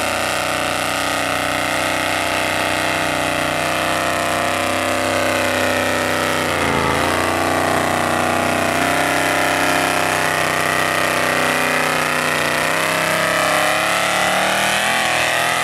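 Engine of a lifted mud truck on tractor tires running hard under load as it pushes through deep mud. The engine note dips sharply about seven seconds in and climbs back, then wavers near the end as the truck climbs out of the bog.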